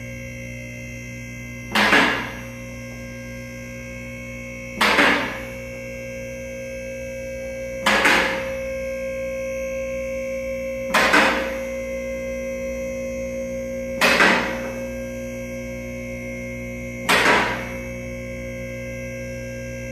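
Two-post car lift's electric hydraulic pump motor running with a steady hum as it raises a car, a little louder from about eight seconds in. Six sharp metallic clacks come about three seconds apart as the lift's safety latches catch.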